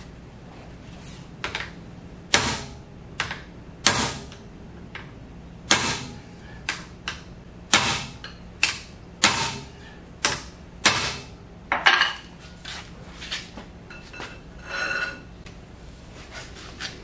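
Hammer blows on a Monarch 10EE lathe spindle assembly: about a dozen sharp metal strikes at uneven intervals, shock-loading a part that is stuck on very tight so it will come loose. A brief squeak follows near the end.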